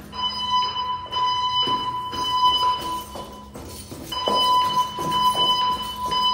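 Alert tone of a Notifier 3030 voice-evacuation fire alarm system, a steady electronic tone sounding in long stretches with short breaks, played through the stairwell speakers during an audible test. Footsteps going down the stairs can be heard underneath.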